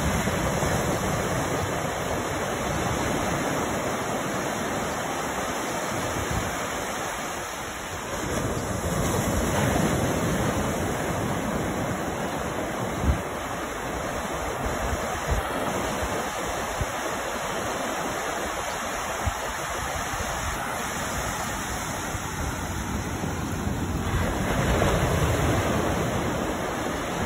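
Ocean surf: waves breaking just offshore and foamy wash running up the sand in a steady rush, swelling louder twice as sets come in.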